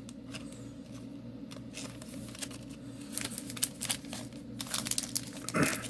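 Soft rustling and small crinkles of Yu-Gi-Oh trading cards and plastic being handled: a card slipped into a plastic sleeve and packs moved about. The crinkles grow busier in the second half, over a steady low hum.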